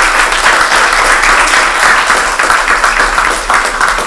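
Audience applauding, the clapping beginning to die away near the end.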